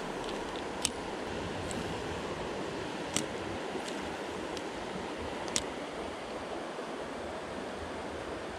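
Steady rush of river water flowing over rapids, with three short sharp clicks spread through it.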